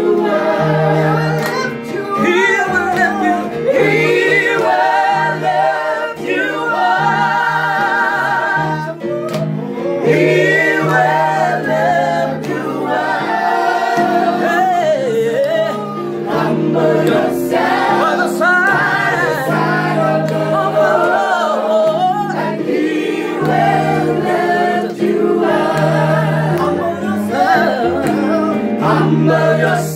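A small group singing a gospel song together, with vibrato on the held notes, over an electronic keyboard playing steady low chords.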